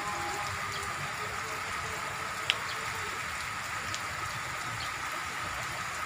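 Heavy rain falling steadily, an even hiss, with one sharp tick about two and a half seconds in.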